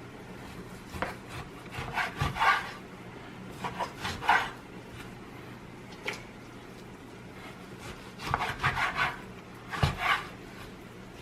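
Kitchen knife sawing through raw beef chuck roast to cut it into chunks: several short runs of quick back-and-forth strokes with pauses between.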